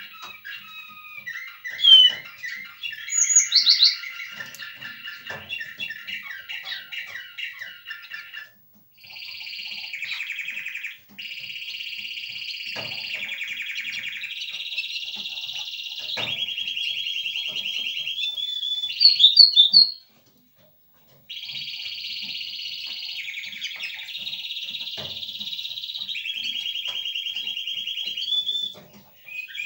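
Small caged finch singing a long song: quick twitters, then long even trills held at one pitch for a few seconds each. It breaks off briefly a few times, with a few sharp, louder high notes.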